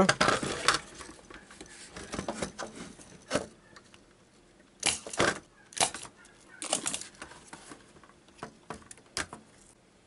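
Small metallic clicks and scrapes of a soldering iron and hand tools against a washing-machine control board as a burnt power-input resistor is desoldered. They come in a few short bunches around the middle, with lighter ticks near the end.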